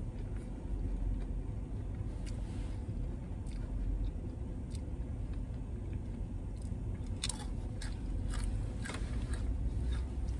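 Close-up chewing and biting of crispy fried fast food, over the steady low hum of a car interior. A cluster of sharp crackles and clicks comes in the last few seconds.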